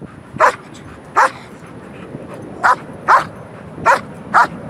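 Black German Shepherd barking: six short, sharp barks, with a pause of about a second and a half after the second one. It is excited barking from a dog held waiting for its ball.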